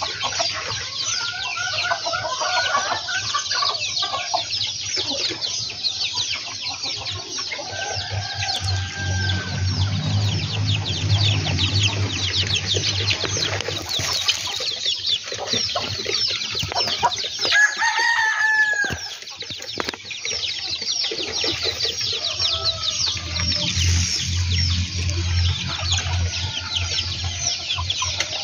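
A flock of village chickens (ayam kampung) clucking, with a rapid high peeping that never stops. A rooster crows once, a little past the middle.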